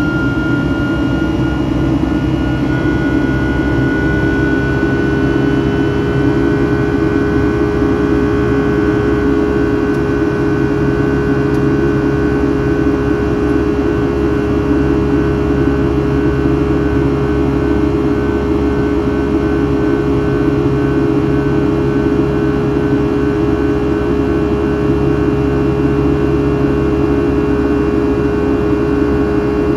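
Rolls-Royce RB211-535E4 turbofan of a Boeing 757-200 running steadily in flight, heard inside the cabin beside the wing as a loud, even rush with several steady humming tones. A higher whine rises slightly in pitch over the first few seconds, and a lower hum comes in about three seconds in.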